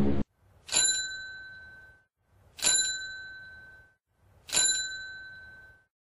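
Bicycle bell rung three times, about two seconds apart, each ring fading away over about a second.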